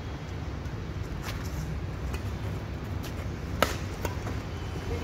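Badminton rackets striking a shuttlecock during a doubles rally: several sharp, separate hits a second or so apart, the loudest about three and a half seconds in. A steady low rumble lies underneath.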